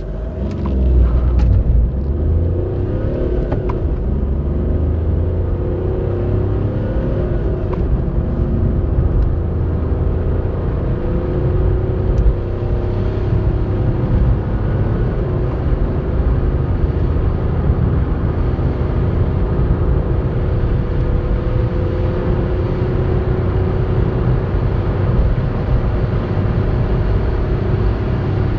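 Volkswagen Polo 1.4 TDI three-cylinder turbodiesel, heard from inside the cabin, accelerating hard from a standstill through the gears. The engine note rises through each gear and drops back at each shift, over a steady low rumble of road noise.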